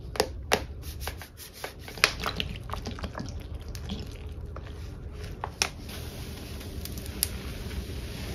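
Gloved hands handling Comet cleanser canisters over a basin of thick suds, with several sharp taps and clicks, and liquid cleaner poured from a bottle into the foam with soft wet, dripping sounds.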